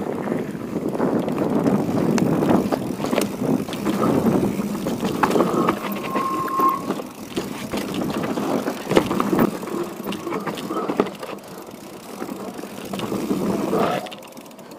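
Mountain bike riding fast down a dirt forest trail: tyres rolling on loose dirt, with the bike rattling and knocking over bumps and a brief squeal about six seconds in. The noise drops away near the end as the bike slows to a stop.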